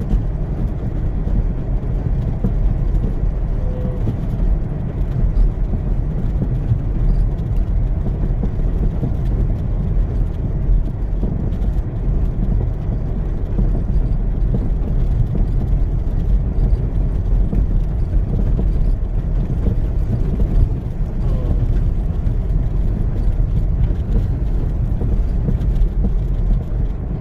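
Car driving on a snow-covered road, a steady low rumble of engine and tyres running through snow.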